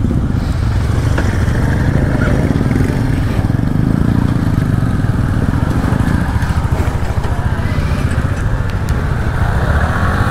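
Motorcycle engine idling with a steady, rapid run of exhaust pulses, then pulling away slowly near the end.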